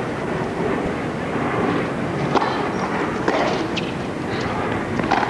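Tennis rally: a few sharp racket hits on the ball, spaced about a second or more apart, over a steady background hiss.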